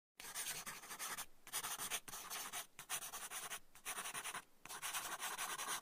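Pencil scratching across paper in about six writing strokes, each under a second long, with short pauses between them.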